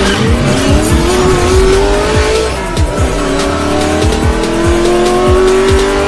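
Intro music with a thumping drum beat over a racing-car engine sound effect that revs up in pitch, drops back as if at a gear change about three seconds in, then climbs again.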